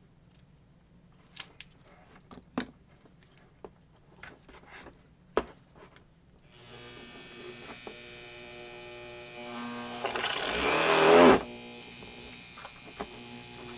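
Small clicks and knocks, then about halfway through a Tacklife rotary tool's motor switches on and runs with a steady whine, driving a Dremel flex shaft. A few seconds later it speeds up briefly, then drops back. The owner hears this as "something ain't right": the flex shaft is a loose, untightened fit on the tool.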